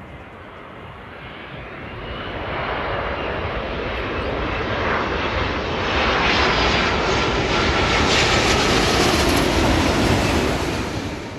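Airliner passing low overhead. Its engine noise swells to a peak about two-thirds of the way through, with a faint whine that shifts in pitch, then fades away.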